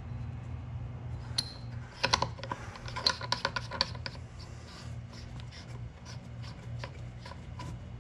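Irregular light clicks and scratching of hands working an oil catch can under a hood, fitting the canister back together, with a flurry of clicks about two to four seconds in. A steady low hum runs underneath.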